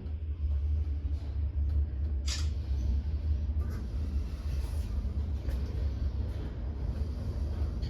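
Passenger lift car travelling upward between floors: a steady low rumble of the car in motion, with one short click about two seconds in.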